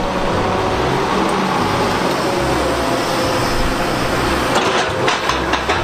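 Large tracked excavator with a rock grab working, its diesel engine and hydraulics running steadily, with a cluster of knocks near the end.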